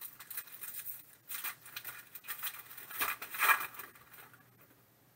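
Foil wrapper of a Panini Prizm football card pack crinkling and tearing as it is handled and ripped open. It is loudest about three and a half seconds in and dies away after about four seconds.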